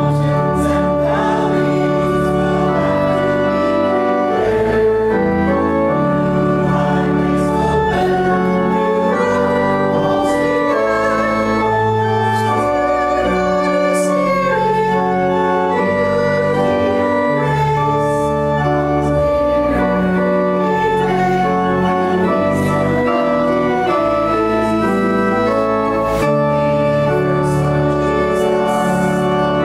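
Church organ playing a hymn in held chords that change every second or so, with voices singing along underneath.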